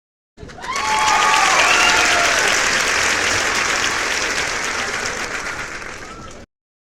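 A crowd applauding, with a few cheering voices. It starts suddenly about half a second in and cuts off abruptly near the end, like an inserted sound effect.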